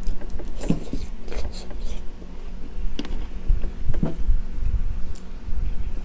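Metal utensil scraping and digging into a juicy half watermelon, mixed with chewing, with a few sharp clicks along the way.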